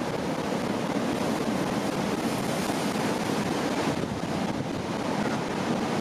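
Steady rushing noise that holds an even level throughout.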